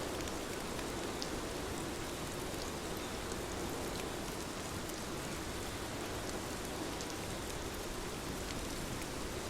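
Steady rainfall, an even hiss with scattered small drop ticks on a surface.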